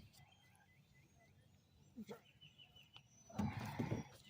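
Small birds chirping faintly in short repeated calls, then a louder rough noise for most of a second a little past three seconds in.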